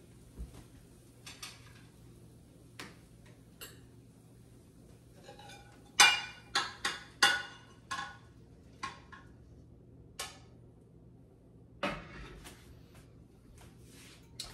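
Frying pan clinking and scraping against a ceramic plate as scrambled eggs are tipped out onto it: a quick run of sharp clinks about six to seven and a half seconds in, with scattered lighter knocks before and after.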